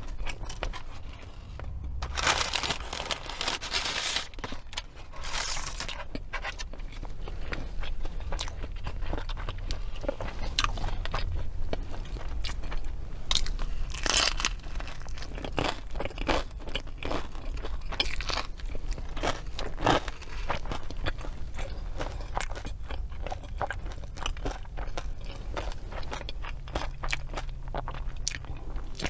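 Close-miked eating: crunchy bites and chewing of fast food, with a scatter of small crackles and a few louder crunches, about two to four seconds in and again near the middle.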